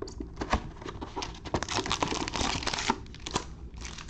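Trading card box and pack wrappers being handled and opened: crinkling and tearing, with sharp clicks and taps of cardboard, and a dense crinkling stretch in the middle.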